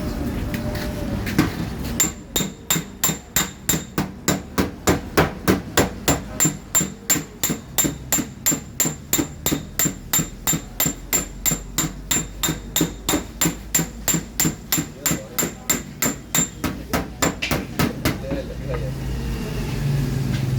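Hammer tapping on a car fender's sheet metal in a fast, even rhythm of about four strikes a second, each with a bright metallic ring, working the dented panel back into shape. The tapping starts about two seconds in and stops near the end.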